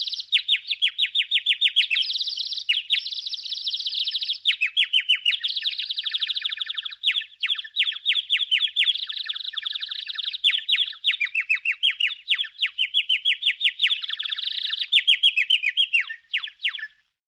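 Cartoon 'dizzy' sound effect of birds tweeting: a continuous run of rapid, high-pitched, downward-sweeping chirps, about six to eight a second, that stops shortly before the end.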